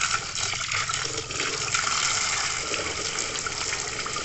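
A stream of water splashing steadily onto a plastic toy dump truck, rushing and spattering off its cab and open bed onto the wet ground.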